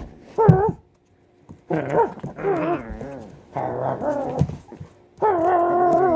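Puppy giving about five short cries that waver up and down in pitch, with a brief pause about a second in.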